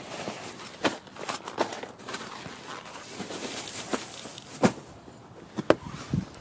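Rustling of fabric and plastic packing material being handled, with a few sharp knocks and clicks, the loudest about a second from the end.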